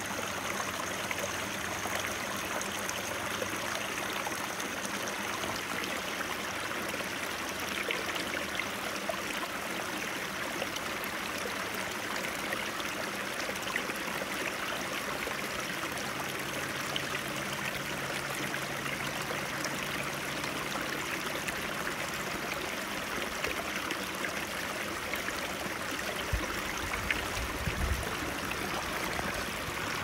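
Shallow creek running over rocks, a steady babbling rush of water.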